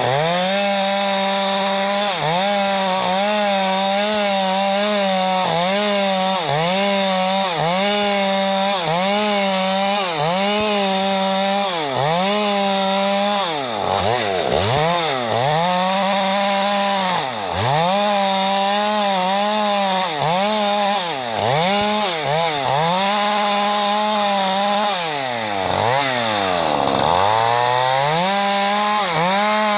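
Two-stroke chainsaw ripping a log lengthwise into planks at high revs. The engine pitch dips and recovers about once a second as the chain bites into the wood, with the deepest bog near the end.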